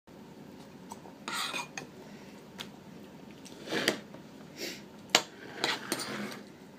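A spoon scraping and clinking in a bowl during a toddler's meal: several short scrapes and taps, with the sharpest click about five seconds in.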